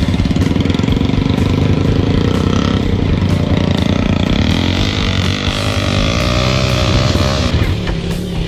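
Dirt bike engine running under way, the revs rising and falling with the throttle through the middle.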